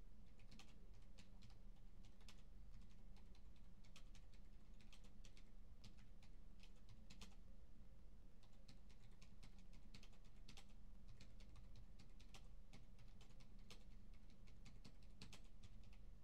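Faint computer keyboard typing, irregular clusters of key clicks, over a steady low hum of office background noise.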